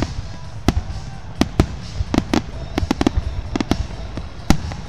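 Aerial fireworks shells exploding in a finale barrage: more than a dozen sharp bangs at irregular spacing, some in quick pairs, over a low rumble.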